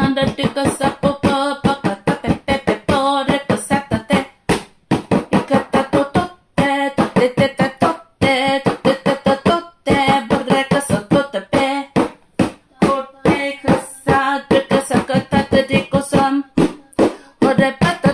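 Speaking in tongues (glossolalia): one voice chanting a rapid string of short syllables, several a second, in a sing-song rhythm.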